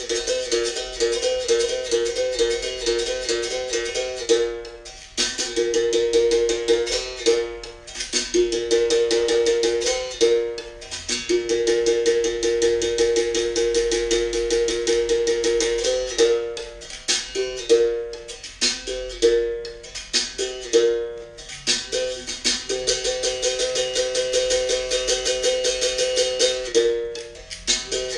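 Berimbau playing a capoeira toque: rapid strikes on the wire moving between two notes a step apart, with stretches of fast repeated strokes on one note.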